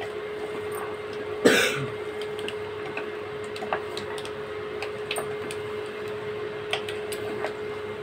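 A spoon stirring chickpeas in a pressure cooker, with a few light clicks of the spoon against the metal pot, over a steady hum. A cough or throat-clear cuts in about one and a half seconds in and is the loudest sound.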